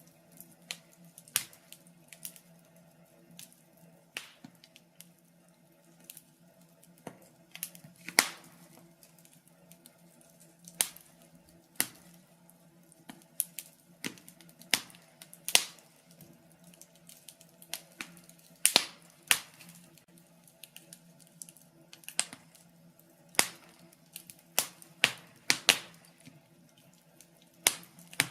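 Wood fire crackling in a fireplace: irregular sharp pops and snaps, a handful of them much louder than the rest, over a faint steady hum.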